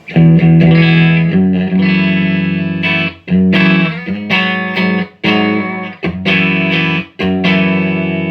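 Electric guitar chords played through a Supro Black Magic 1695T tube guitar amp. The sound starts abruptly and the chords ring out, with short breaks about three, five and seven seconds in. The amp is working as it should after a broken 12AX7 preamp tube was replaced.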